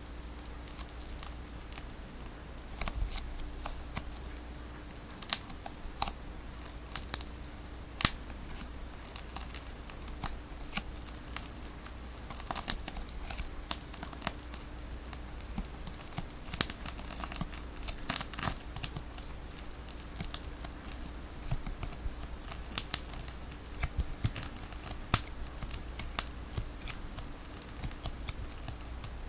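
A tape ball being cut and peeled open: irregular sharp snips and crackles of sticky tape tearing, with a few louder snaps.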